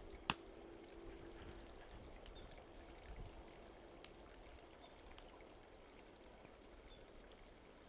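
A small, half-frozen stream murmuring faintly as its water runs between thin ice sheets, with one sharp click just after the start.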